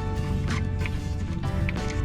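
Background music with a steady bass line and notes changing about every half second, with short bright percussive accents.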